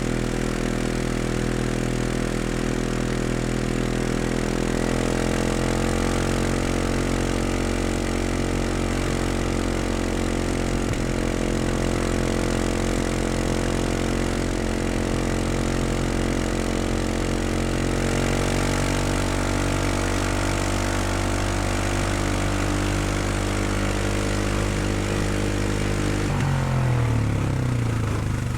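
Four-stroke utility ATV engine running steadily at a low, even speed, its pitch stepping up slightly a couple of times. Near the end the revs drop with a falling pitch and settle at a lower idle.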